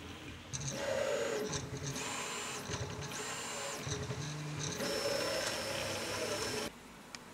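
Prusa i3 MK3S 3D printer's stepper motors whining as the print head and bed move at the start of a print. It comes in several separate moves, each with its own pitch, and cuts off suddenly near the end.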